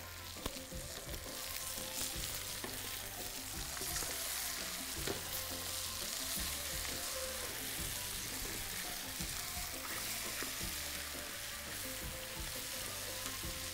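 Chicken pieces frying with sliced onions and green chilli in a metal pan, sizzling steadily as they are stirred with two wooden spoons, with a few light knocks of the spoons against the pan.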